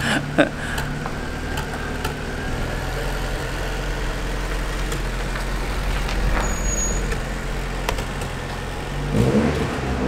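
Tofaş Doğan SL's four-cylinder petrol engine running steadily at idle, then revving up about nine seconds in as the car pulls away.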